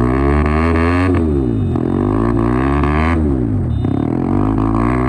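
Yamaha MT15's single-cylinder engine held at high revs during a burnout, its pitch repeatedly dropping and climbing again as the throttle is worked, with the rear tyre spinning against the road.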